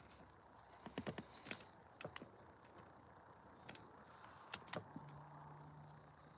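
Several sharp clicks and knocks, then about five seconds in a small boat's motor starts and runs with a low, steady hum.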